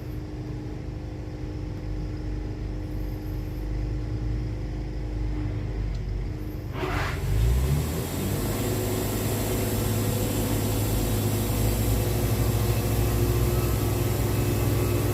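Sawmill engine running at idle with a steady low hum. About seven seconds in there is a sharp click, the engine revs up, and it runs on louder and steady with a hiss, as the mill cuts a board from a poplar log.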